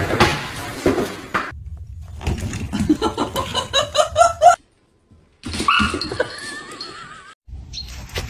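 Short pet clips with animal calls: a run of repeated, rising pitched calls that stops abruptly, a brief silence, then one long wavering call.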